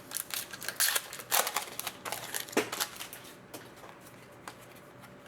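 Foil wrapper of a hockey trading-card pack crinkling as it is torn open and the cards are pulled out: a run of rustles and crackles for about three and a half seconds, then a few light ticks.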